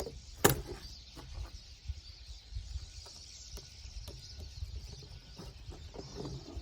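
Rock Bros bike lock being handled, with a sharp click about half a second in and then scattered light clicks and knocks, over a steady high hiss.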